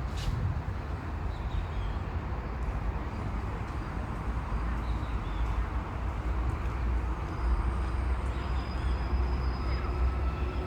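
Steady low rumble of city traffic, with a few faint high thin tones in the second half.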